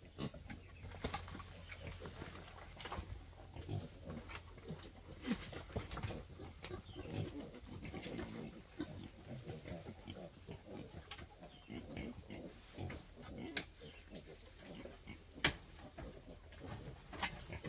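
Wild boars grunting in their pen, with several sharp wooden knocks as the pen's log and bamboo rails are handled.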